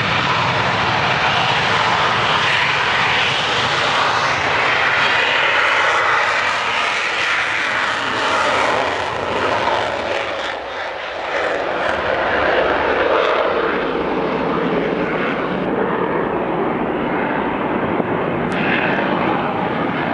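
Belgian Air Force F-16's Pratt & Whitney F100 turbofan in afterburner during its takeoff run and climb-out: loud, steady jet noise that dips briefly about halfway through and loses its highest hiss in the last few seconds.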